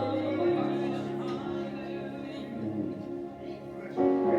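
Soft instrumental church music of long sustained chords, getting louder about four seconds in.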